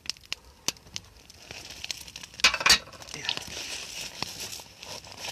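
Campfire crackling: scattered sharp pops and clicks, with a louder rustling burst about two and a half seconds in.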